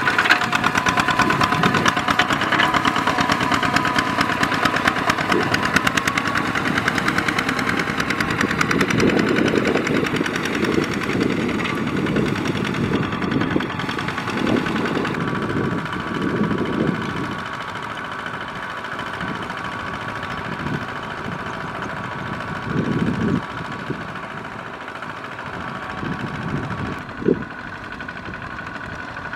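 Two-wheel walking tractor's single-cylinder diesel engine running steadily under load as its steel cage wheels churn through a flooded rice paddy, with muddy water sloshing and splashing. The engine sound changes abruptly a couple of times and is quieter in the second half.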